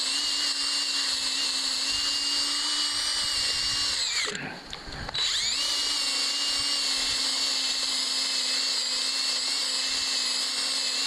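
Handheld drill motor running steadily as it scrubs dirt off the bark of a log. About four seconds in it briefly winds down, then spins back up to speed.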